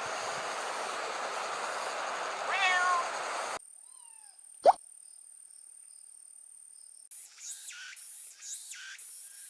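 A steady hiss with one short animal call about two and a half seconds in. The hiss cuts off abruptly, and a single sharp tap follows. Near the end, faint high chirps sound over a thin steady tone.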